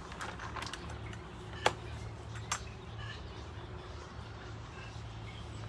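Quiet background with a steady low hum and two brief sharp clicks.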